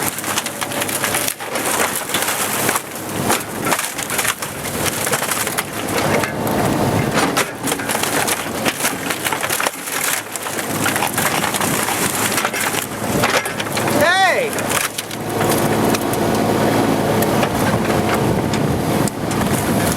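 Old barn timbers cracking, splintering and crashing as a Bobcat 328 compact excavator tears the wooden structure down, with the machine's Kubota diesel engine running underneath. A brief squeal that rises and falls in pitch cuts through about two-thirds of the way in.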